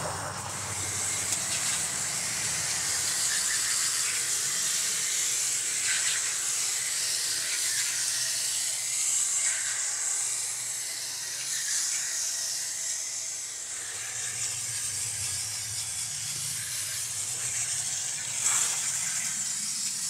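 Garden-hose spray wand jetting water through the fins of an air-conditioner condenser coil: a steady hiss of spray against the metal, swelling briefly near the end.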